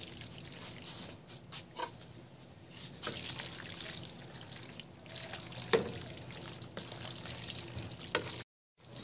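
Wooden spatula stirring and tossing fettuccine in a thick cream sauce in a nonstick pan: wet stirring noise with a few sharp knocks of the spatula against the pan. The sound cuts out briefly near the end.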